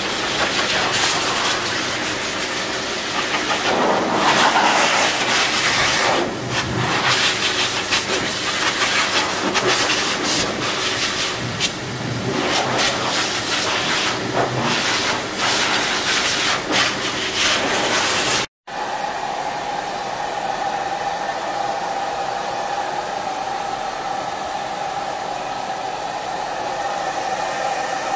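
Pet grooming blower forcing a strong stream of air over a dog's coat, the rushing air rising and falling as the nozzle moves. After a sudden cut about two-thirds of the way through, a dryer runs steadily with a constant whine.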